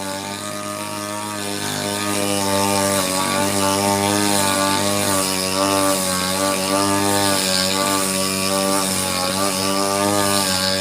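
Falcon 328 two-stroke brush cutter engine running at working speed while cutting grass, its pitch wavering slightly up and down; it grows louder about two seconds in.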